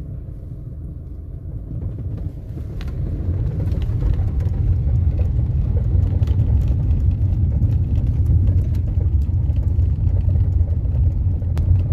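Car driving over a cobblestone road, heard from inside the cabin: a steady low rumble of tyres on stones that grows louder about three seconds in, with a few light knocks and rattles.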